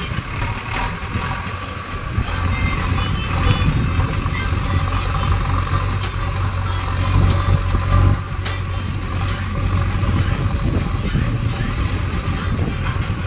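JCB 3DX backhoe loader's diesel engine running under load as the backhoe arm digs, the engine note swelling and easing a few times, loudest about eight seconds in.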